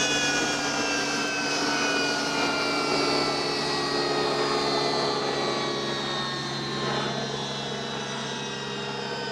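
BAE Hawk T1's Adour turbofan jet engine whining as it winds down after shutdown, its whistling tones sliding steadily lower and the sound slowly fading, over a steady low hum.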